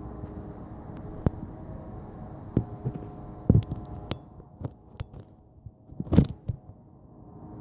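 A steady low hum made of several held tones, from an unexplained source in the sky that does not move the way a passing plane would. Several sharp knocks and clicks cut across it, the loudest about three and a half and six seconds in, and the hum fades somewhat near the end.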